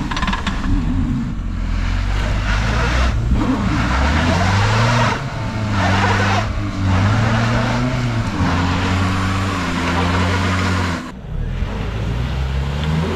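Car engine revving hard under load as it tows a car out of deep mud on a rope, its pitch rising and falling over a rough, noisy wash. The sound breaks off abruptly near the end, then an engine revs up again.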